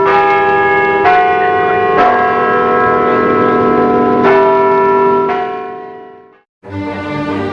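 Church bells ringing, a fresh stroke about every second with one longer gap, the ringing dying away about six seconds in. Music starts just before the end.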